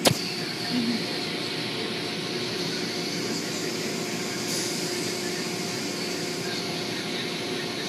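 Automatic car wash machinery running with a steady, even mechanical rush and faint hum. A sharp click comes right at the start.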